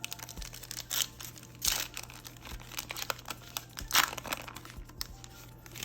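Foil Yu-Gi-Oh! booster pack wrapper crinkling and tearing as it is handled, in irregular bursts with the loudest crackle about four seconds in.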